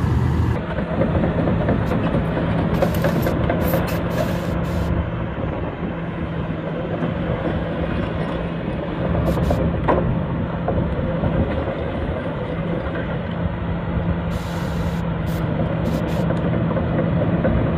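2017 Kobelco SK300 excavator's six-cylinder diesel engine running steadily, with a sharp click about ten seconds in.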